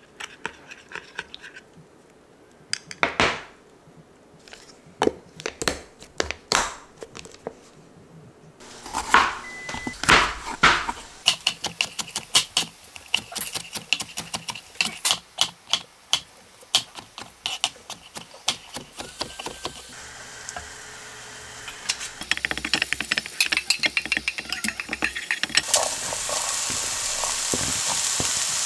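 A run of kitchen sounds. First a spoon clinks and scrapes against a glass container as oats are stirred. Then a knife chops quickly and repeatedly through yellow bell pepper on a cutting board, several knocks a second. Near the end, diced vegetables start sizzling in a frying pan, a steady hiss.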